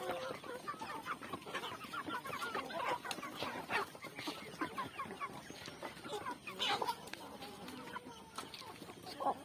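Aseel chickens clucking, with many short calls overlapping one another throughout.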